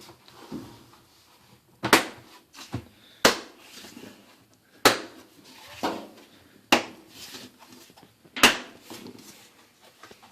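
A washing machine's tub ring being pressed back onto the drum, its tabs snapping into place one at a time: five sharp snaps about every one and a half seconds, with softer knocks between.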